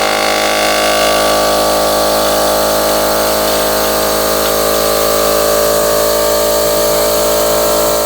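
Kobalt 20-gallon single-stage oil-free electric air compressor running loud and steady just after being switched on, at the start of its 10-minute break-in run.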